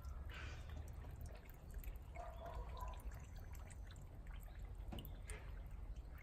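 Rain dripping in scattered drops over a low steady rumble.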